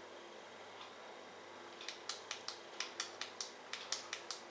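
A ThruNite TI5 pocket flashlight worked in the hands: after about two quiet seconds, a quick run of light, sharp clicks, roughly four or five a second.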